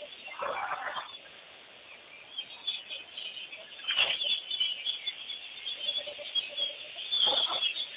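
Wild birds chirping continuously around an African waterhole, with three louder, short bird sounds about half a second, four seconds and seven seconds in.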